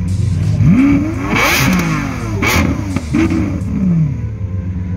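Car engine revved in several blips, its pitch rising and falling repeatedly, with two louder blasts of exhaust noise in the middle, over a steady low drone of engines running.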